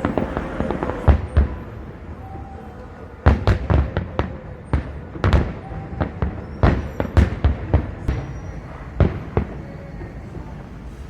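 Fireworks display: aerial shells bursting in an irregular run of sharp bangs, several coming in quick clusters, over a faint crowd hum.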